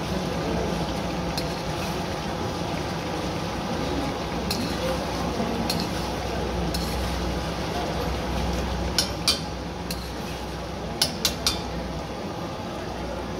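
Long metal spatula stirring and scraping mutton karahi in a steel karahi, with sharp clinks of metal on the pan: a pair about nine seconds in and three in quick succession near the end. The gravy sizzles steadily underneath as its water cooks off and the masala thickens.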